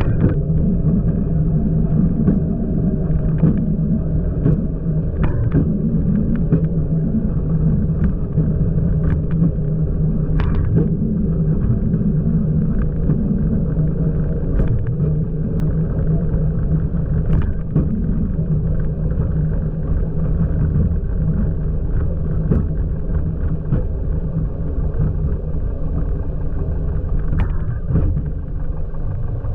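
Light aircraft's piston engine running steadily in a continuous drone, with a few faint clicks over it.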